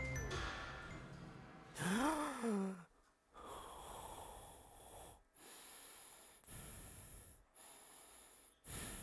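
A man gasps sharply about two seconds in, then breathes heavily in and out, about one breath a second.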